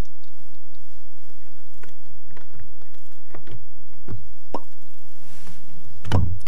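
Light irregular plops and knocks of water slapping against a plastic fishing kayak's hull, with the loudest knock about six seconds in.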